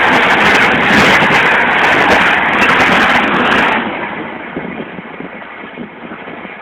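Express train passing at speed on the next line, a loud steady rush of coaches and wheels on the rails that drops away sharply about four seconds in.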